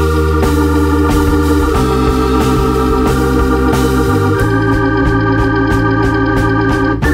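Background music: held organ-like keyboard chords over a moving bass line, the chords changing about every two to three seconds.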